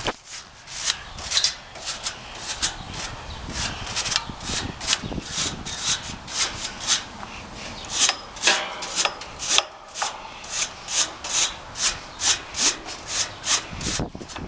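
Rake-style coil-cleaning tool scraping repeatedly along the aluminium fins of an air-conditioner condenser coil, pulling dust and cobwebs out. The strokes are short and even, about two to three a second, and come faster in the second half.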